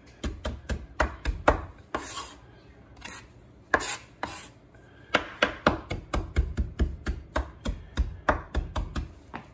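Chef's knife chopping fresh Italian parsley on a wooden cutting board: quick repeated knocks of the blade on the board, about three a second, with a lull of a second or two partway through before the chopping picks up again and runs steadily.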